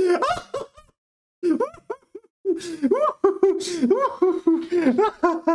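A man laughing: a short laugh at the start, a brief pause, then long, continuous laughter from about a second and a half in.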